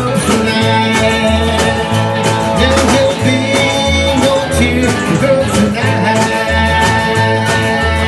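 A country band playing an instrumental break: upright bass walking a steady beat under a drum kit, strummed acoustic guitar, electric guitar and harmonica.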